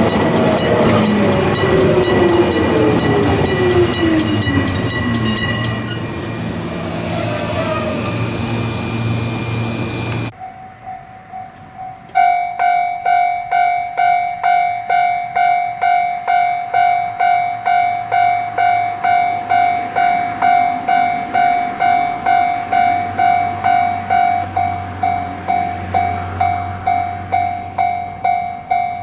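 A train running over a level crossing with a falling whine, while the crossing's electric bell rings with fast regular strikes. After a short break, a modern electronic level-crossing alarm sounds one steady tone, pulsing about twice a second.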